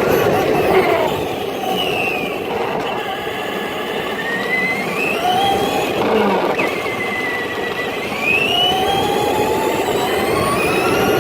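RC truck's motor whining, its pitch gliding up and down repeatedly as the truck speeds up and slows, over a steady rough rumbling noise.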